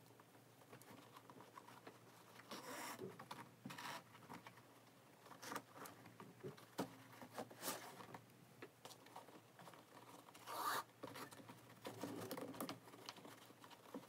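Shoelaces being pulled through the eyelets of a new Vans sneaker: a series of faint, brisk rustling zips and scrapes, the loudest about ten and a half seconds in.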